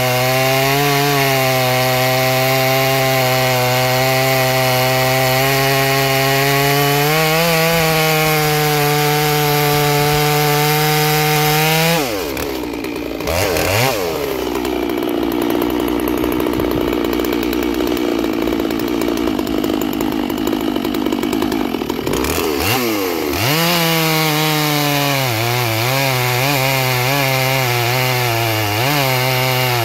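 Large two-stroke chainsaw cutting through logs. The engine labours at steady, held-down revs in the cut. About twelve seconds in it revs up and stays high for about ten seconds, then drops back under load, its pitch rising and falling near the end as the saw works through the wood.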